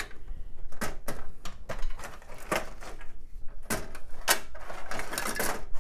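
Handling noise from hands working inside a steel PC tower case, disconnecting cables: a run of irregular clicks and knocks with rustling between them.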